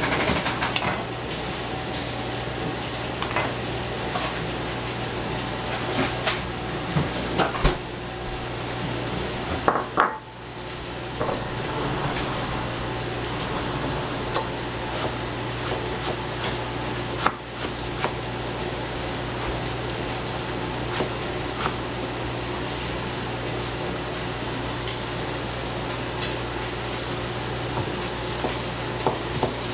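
Kitchen utensils clinking and knocking against pots, pans and dishes, in irregular short clicks over a steady low hum.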